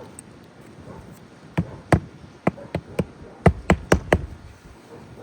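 Hammer knocks on a roof shingle, about nine sharp strikes in quick uneven succession starting over a second in, as a replacement asphalt shingle is nailed down.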